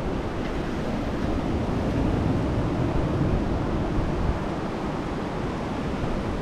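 Steady rush of wind and sea surf, with wind rumbling on the microphone.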